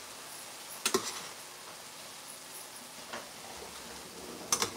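Shrimp frying in a stainless steel sauté pan with a low steady sizzle. A utensil clicks against the pan about a second in, and there are a few quick clicks near the end.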